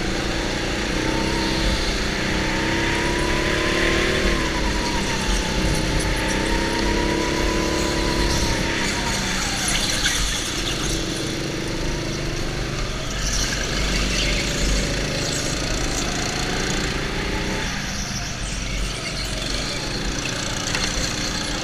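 Go-kart motor running under the driver's seat, its pitch rising and falling over and over as the kart speeds up and slows through the corners, with other karts running close by.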